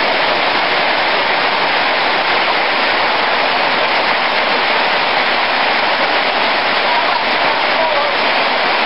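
Heavy rain pouring down steadily in a hard downpour, a constant dense hiss.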